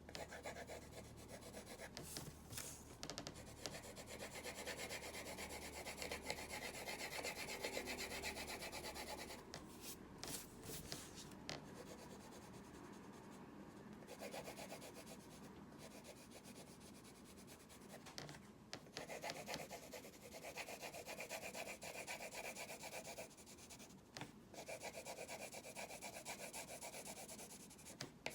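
A drawing tool scratching and rubbing across a drawing surface in sketching strokes, in long stretches with brief pauses, the longest around ten seconds in and again near the end.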